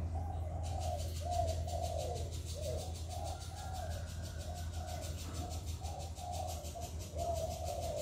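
Spotted dove cooing: a continuous run of short, repeated coos, several a second, some falling in pitch. A steady low hum lies underneath.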